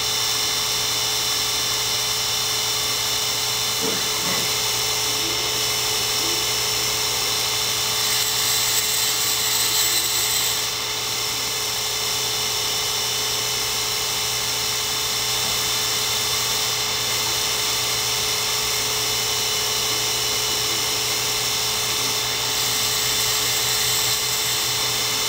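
High-speed electric grinding spindle of a miniature cam grinder running steadily with a constant whine while its wheel is being dressed with a diamond dresser. A brighter hiss, the diamond passing across the wheel, comes about a third of the way in and again near the end.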